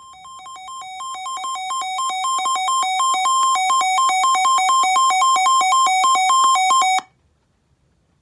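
Weather radio receiver's warning alarm: two beeping tones alternating rapidly, growing steadily louder for about seven seconds and then cutting off, as an incoming warning broadcast is received.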